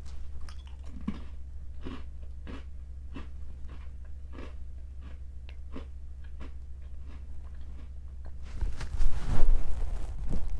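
Chewing picked up at very close range: soft crunching clicks about one and a half a second over a steady low hum. About eight and a half seconds in, a louder, denser run of sound sets in.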